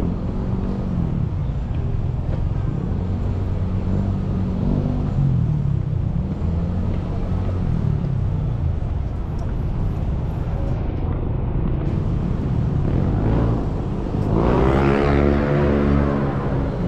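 Urban street ambience: a steady rumble of passing motor vehicles, with one vehicle louder for a couple of seconds near the end. Faint voices of passers-by are mixed in.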